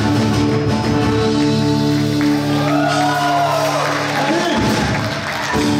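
Live rock band with acoustic guitars, bass and keyboards holding long chords at the close of a song, with a voice singing over them from about halfway through.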